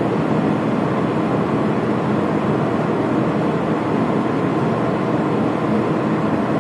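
Blower door fan (Blower Door 3, fitted with its small Ring E flow ring) running steadily at high speed: an even rushing noise with a faint hum in it. It is depressurizing the house toward the −50 pascal test pressure.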